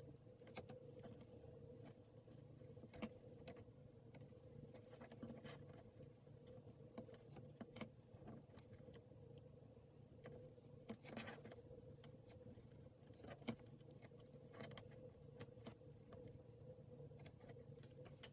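Faint, irregular scratching, rustling and light taps of fingertips pressing and folding a stitched fabric piece against a wooden tabletop, over a steady faint hum.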